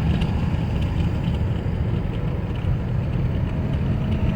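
Steady engine and road rumble inside the cabin of a moving 2009 Chevrolet Tahoe. The transmission is shifting without slipping on newly replaced shift solenoids. A faint steady hum comes in near the end.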